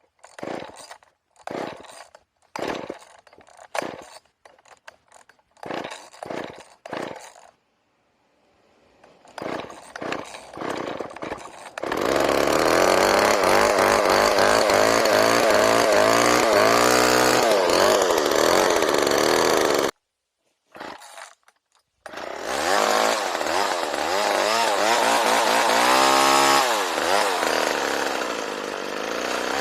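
Homelite Super 2 two-stroke chainsaw being pull-started, choke first: a string of starter-rope pulls, a few sputters, then the engine catches and runs, revving up and down. It cuts off suddenly about twenty seconds in, then runs and revs again.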